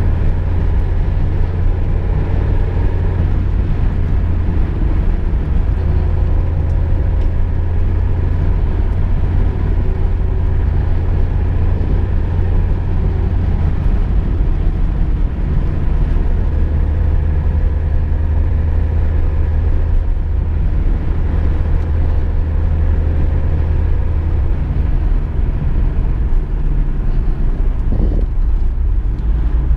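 Interior noise of a VW Golf II driving at a steady speed: a constant low rumble of engine and road with tyre noise. A brief knock comes near the end.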